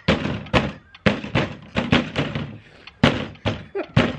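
Fists pounding a plastic folding table again and again as two people try to smash small tomatoes on it: irregular thuds about two to three a second, with bowls rattling on the table.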